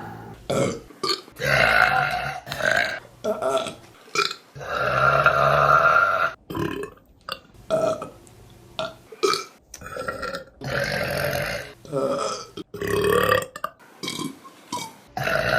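A string of women's burps, one after another with short gaps, most brief, one drawn out for about two seconds about a third of the way in.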